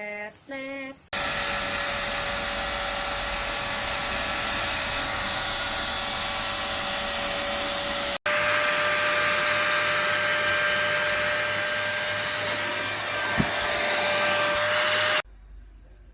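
KV 01 Kurumi UV mite vacuum cleaner running steadily with a constant high whine over its motor noise. It is heard in two stretches split by an abrupt cut about eight seconds in, and it switches off about a second before the end.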